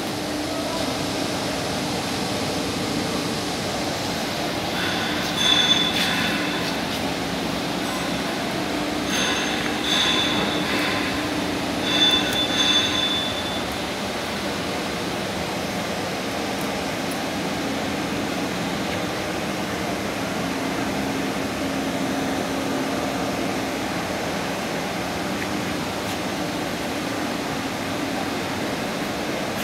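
Steady machinery hum in an industrial workshop, with three brief high-pitched metallic squeals in the first half.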